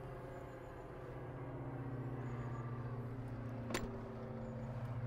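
Electric power tailgate motor of a Mercedes-AMG GLC63 whirring steadily as the tailgate closes under power, with one sharp click nearly four seconds in.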